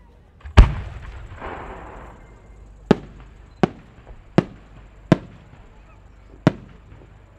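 A 10-gō (about 30 cm) aerial firework shell is fired from its mortar with one deep thump, the loudest sound, about half a second in, followed by a brief hiss as it climbs. Then come five sharp cracks spread over the next few seconds as the small rising effects on its trail burst one after another.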